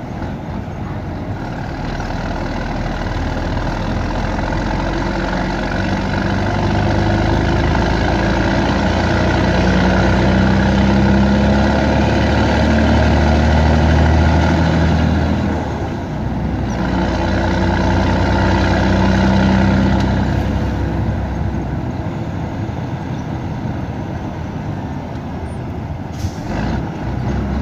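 Scania 113 truck's diesel engine pulling hard, heard from inside the cab, its revs climbing steadily through most of the first half. The sound drops briefly at a gear change around halfway, climbs again, then eases off for the last few seconds.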